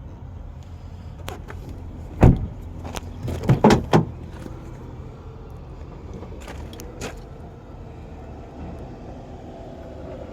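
A few sharp clicks and several loud knocks, the loudest about two seconds in and a cluster of three around three and a half to four seconds, over a steady low rumble.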